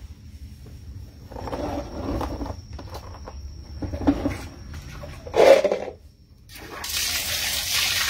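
Water tap turned on, water gushing from the spout and splashing onto a concrete floor as a steady hiss that starts a little before the end. Before it come three short bursts of sound about a second apart.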